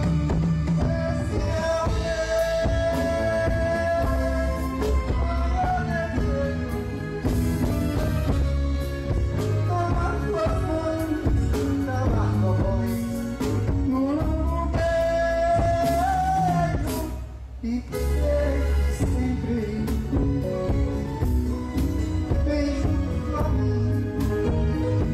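A live band plays amplified music: electric guitar, drum kit and keyboard under a steady beat, with singing over it. The music briefly drops away about two-thirds of the way through, then comes back in.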